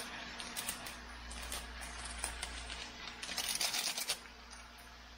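Light scattered clicks, then about three seconds in a quick run of rapid ticks, lasting about a second, as seasoning granules are shaken from a plastic sachet onto vegetables in a steel wok.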